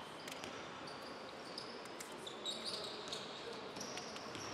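Basketball play on a hardwood court: sneakers squeak in short, high chirps as players cut and stop, over the knocks of the ball being dribbled.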